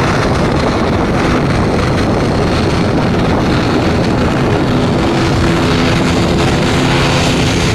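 Boeing 787-9 Dreamliner jet engines at takeoff thrust, a loud steady noise, with a few low steady tones coming in about five seconds in.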